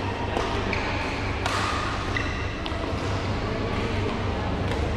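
Badminton rackets striking a shuttlecock during a rally: sharp, irregular hits, several with a short ringing ping from the strings, over a steady low hum.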